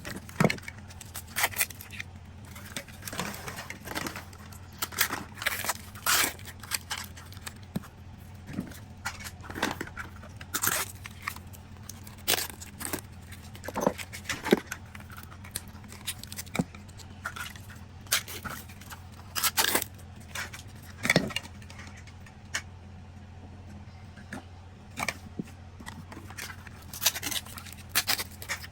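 Plastic packaging of toy capsules being handled and opened: irregular crinkling, tearing and sharp plastic clicks, over a steady low hum.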